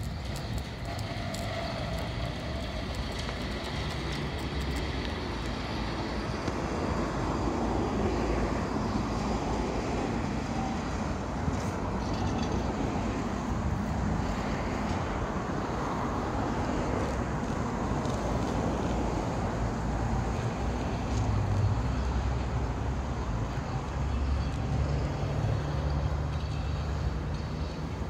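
Tram running along the track: a steady low rumble of wheels and running gear, with a few faint clicks and a low hum near the end.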